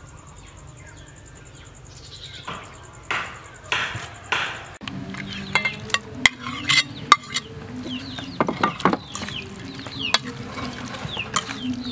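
A metal spoon stirring raw salmon salad in a stainless steel mixing bowl: wet scraping with several sharp clinks against the bowl.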